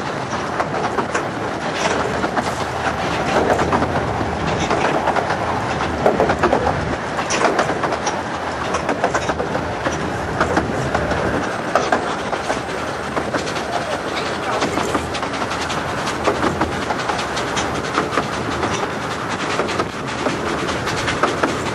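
Carriage of a 15-inch gauge miniature steam railway running along the track, heard from on board the open carriage: a steady rattling rush of wheels on rails with many small clacks and knocks from the rail joints and the carriage body.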